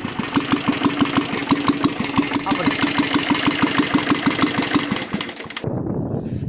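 Royal Enfield Bullet's single-cylinder diesel engine running at idle on a steady beat of about eight knocks a second, then switched off abruptly about a second before the end.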